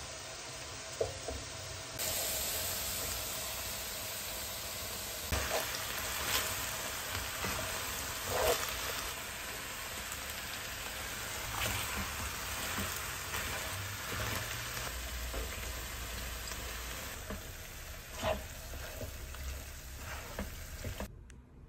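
Beef strips and broccoli stir-frying in a nonstick pan: a steady sizzle that grows louder about two seconds in. Metal tongs toss the food, knocking against the pan now and then.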